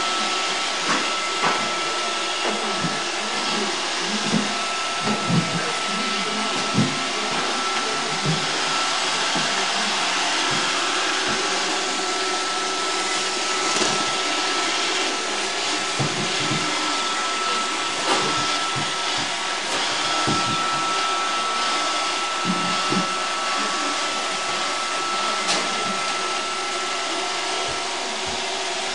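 iRobot Roomba 555 robot vacuum running: a steady whir from its vacuum motor and brushes, with a thin high whine that comes and goes. Short low knocks are scattered through it.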